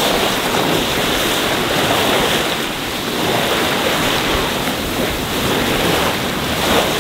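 Bow wave and wake of a sailboat rushing and splashing along the hull as it sails close-hauled at about 6.5 knots, with wind buffeting the microphone. A steady, loud rush.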